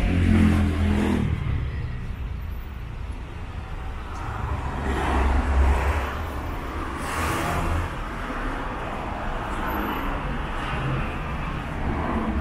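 City street traffic: cars driving past with engine rumble and tyre noise, louder near the start and again about halfway through as vehicles pass close.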